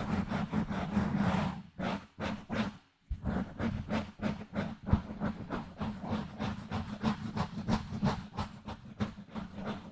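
Fingers scratching directly on a microphone in quick, even strokes, about five a second, with a short break about two to three seconds in.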